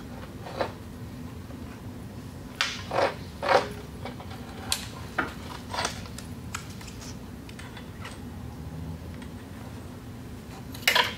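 Scattered metal clinks and knocks as the handle assembly of a Mud Buddy Sport V mud motor is worked loose by hand, with a cluster of knocks a few seconds in and a louder knock near the end, over a steady low hum.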